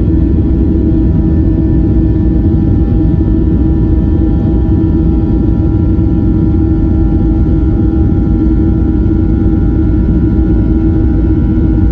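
Cabin sound of a Boeing 737-800's CFM56 jet engines running at power: a loud, steady low rumble with a steady engine whine over it.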